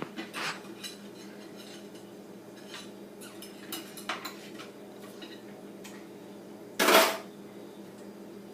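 Toy pots, pans and utensils clinking and knocking now and then as a child plays at cooking, with one louder clatter about seven seconds in.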